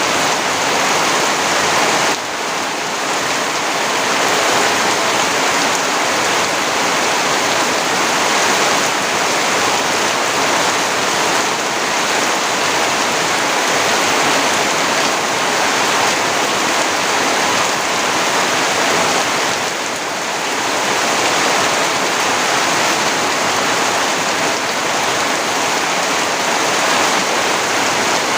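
Steady rain falling, a dense even hiss that dips slightly twice.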